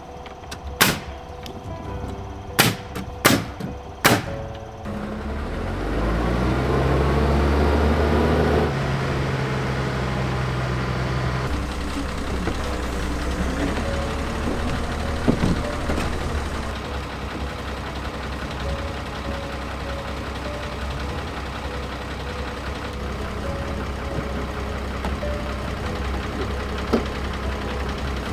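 Four sharp knocks on timber, then a heavy engine revs up and runs steadily.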